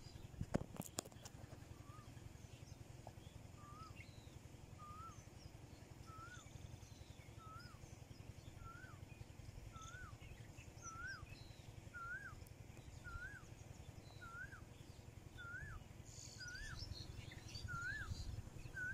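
A bird repeating a single short note that rises and then drops, about once a second, edging slightly higher in pitch as it goes, over faint higher chirps from other birds and a low steady rumble. A couple of sharp clicks sound about a second in.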